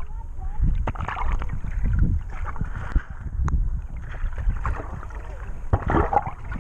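Water sloshing and splashing in irregular surges, over a low rumble of wind on the microphone.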